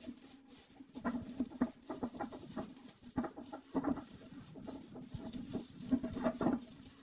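Plastic branches of a small artificial Christmas tree rustling and crackling in short, irregular scratches as they are bent and fluffed out by hand.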